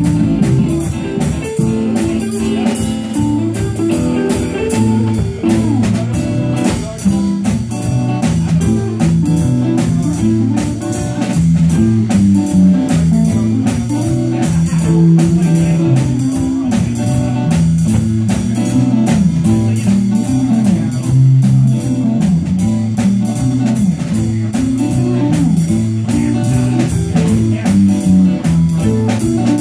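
Live band playing an instrumental, bluesy jam: electric guitars soloing over bass guitar and a drum kit keeping a steady beat.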